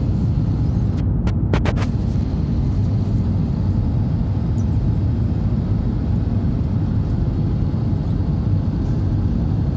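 Steady low roar inside a jet airliner's cabin during the climb after take-off: wing-mounted turbofan engine and airflow noise heard from a window seat. A few sharp clicks sound about a second in.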